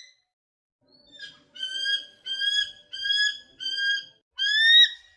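A bird calling repeatedly: a run of about six short, even calls starting about a second in, the last one louder.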